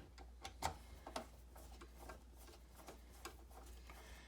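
Faint, irregular clicks and ticks of a screwdriver driving the mounting screws back into the lock's interior housing, with the two loudest clicks about half a second and just over a second in.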